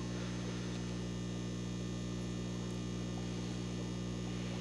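Steady low electrical hum made of several even tones, unchanging throughout.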